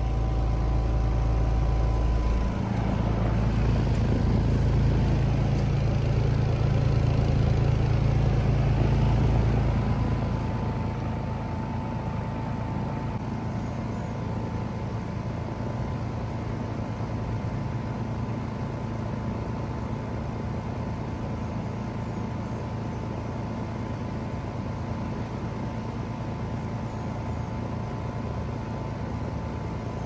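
Trane XR14 3-ton heat pump outdoor unit running in cooling mode: its Alliance scroll compressor humming and its condenser fan blowing steadily. The deep hum is louder for about the first ten seconds, then settles to a steadier, lower level.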